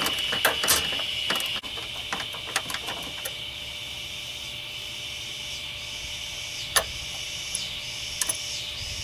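Scattered metallic clicks and taps of a wrench working a fine-threaded 10 mm bolt out of a pop-up headlight motor mount, most of them in the first three seconds with a couple more near the end, over a steady hiss.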